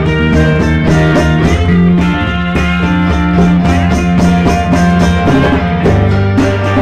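A rock band playing: guitar chords and notes over a steady drum beat, heard from among a seated audience.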